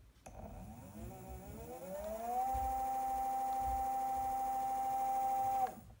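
Electric skateboard hub motor spinning free under remote throttle. Its whine rises in pitch over about two seconds, holds steady for about three seconds, then stops abruptly near the end.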